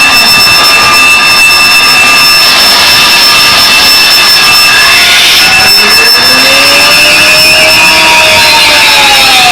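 Live harsh noise music: loud, dense distorted hiss with several steady high-pitched tones on top. A slow tone falls away in the first half-second, and another glides up from about six seconds in and arcs back down near the end.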